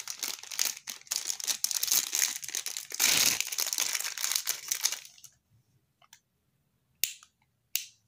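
Clear plastic packaging bag crinkling and rustling as it is torn open and handled to unwrap a small push-button switch, then a few sharp clicks near the end.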